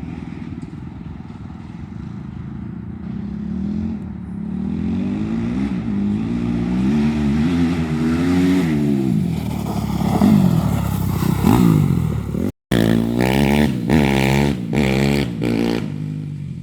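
Yamaha YZ250F motocross bike's single-cylinder four-stroke engine revving up and down repeatedly as it is ridden, its pitch rising and falling with throttle and gear changes and getting louder after the first few seconds. The sound cuts out for a moment about twelve and a half seconds in, then comes back with quick rev after rev.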